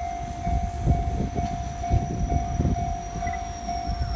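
Level-crossing warning bell ringing in a steady repeated tone, about two strokes a second, the signal that a train is approaching, over a low uneven rumble.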